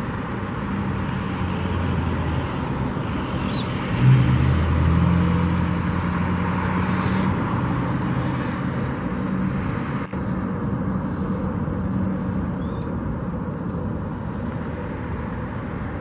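Vehicle engine noise over a steady outdoor hum. One engine grows louder about four seconds in and eases off by about eight seconds.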